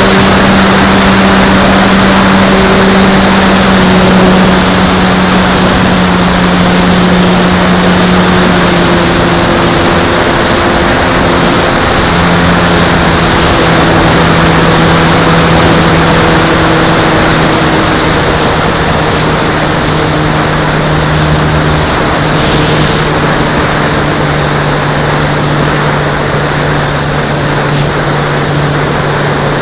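Onboard sound of an Extra 330L radio-controlled model aeroplane in flight: its motor and propeller give a loud, steady drone under a heavy rush of airflow noise. The drone's pitch drops a little about ten seconds in and stays lower.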